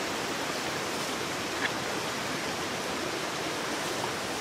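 Mountain stream rushing steadily, with one faint tick a little over a second in.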